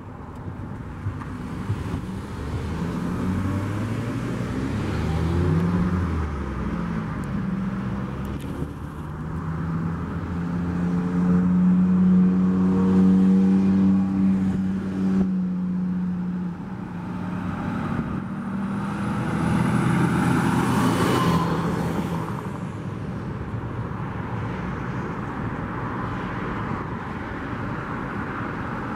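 Road traffic: diesel trucks and cars pulling away and passing, engine pitch rising and falling as they accelerate. A louder, steadier engine hum peaks about 10 to 15 seconds in, and a passing vehicle's noise swells around 20 seconds in.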